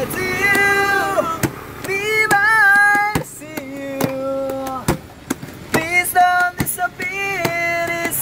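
A young man singing a slow love ballad unaccompanied, holding long wavering notes with short breaks between phrases.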